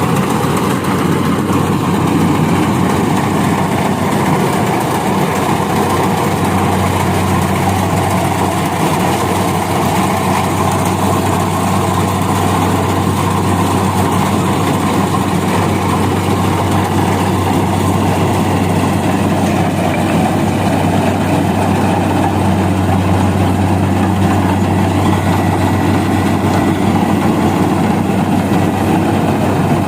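Rice combine harvester's engine running steadily while it harvests, with a constant low hum that grows a little stronger about seven seconds in.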